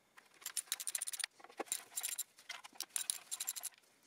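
Faint, light metallic clicking and clinking in irregular clusters: small rusty steel bolts and hand tools being handled and set down.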